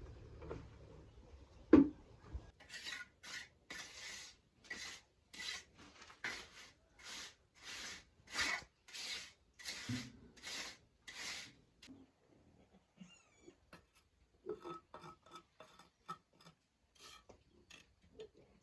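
A sharp knock, then a hand saw cutting wood in steady back-and-forth strokes, about one and a half a second, for several seconds; after it stops, lighter scattered clicks and scrapes.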